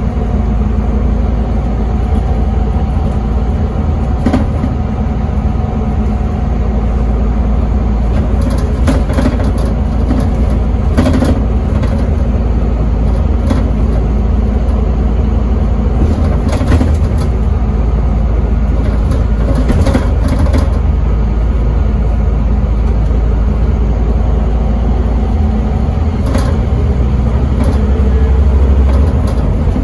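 A Scania N270UD double-decker bus's five-cylinder diesel engine running as the bus drives, heard from inside the passenger saloon as a steady deep drone. Short rattles and knocks come every few seconds, and the engine grows louder near the end.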